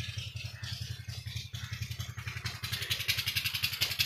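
A small engine running with a steady, rapid thudding of about a dozen beats a second; a louder, higher clatter joins about two and a half seconds in.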